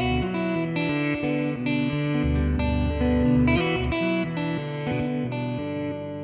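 Electric guitar played through an Old Blood Noise Endeavors BL-44 reverse pedal: overlapping sustained notes and chords in an ambient wash, changing every half second or so.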